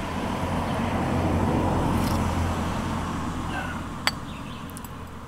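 A car passing on a road, its noise swelling to a peak a second or two in and then fading away over a steady low hum. A single light click comes about four seconds in.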